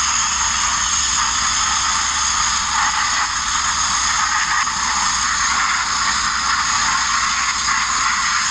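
Abrasive media blaster running continuously: the nozzle's steady, loud hiss of compressed air and grit striking the bare steel of a Mk1 Ford Transit's front bodywork.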